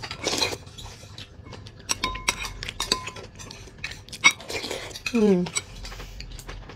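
A metal spoon clinking and scraping against a small glass bowl, with several sharp clinks that ring briefly, between mouthfuls of chewing. Near the end comes one short hum of enjoyment, falling in pitch.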